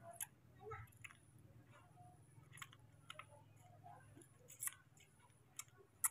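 Baby macaque faintly smacking and sucking on a segment of orange held to its mouth: a scatter of short, sharp wet clicks over a low steady hum.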